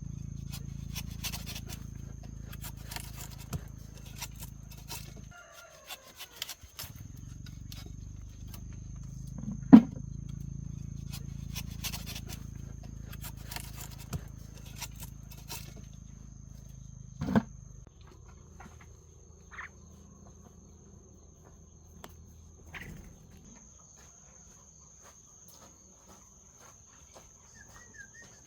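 Insect buzzing in a steady high trill, over a low rumble with scattered small clicks and two sharp knocks. The rumble drops away about two-thirds of the way through.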